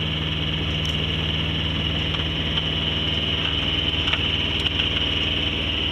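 Sailboat's engine running steadily as the boat motors along under power, a constant even drone.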